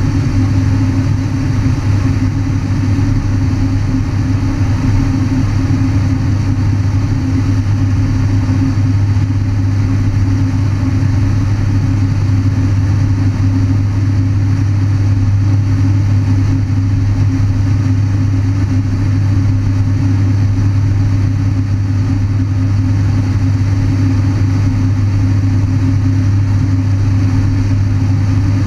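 A Thrush crop-duster's 750 hp Pratt & Whitney turboprop engine and propeller running at a steady cruise, heard from inside the cockpit: a loud, even drone with a strong low hum that does not change.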